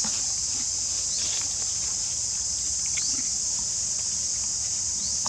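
A steady, high-pitched drone of insects, with a short rising chirp every second or two.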